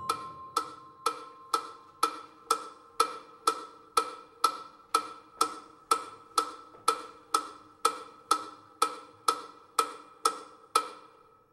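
Metronome ticking steadily at about two clicks a second, a sharp click with a short pitched ring, left running after the music ends and stopping near the end. At the start the last glockenspiel notes die away under it.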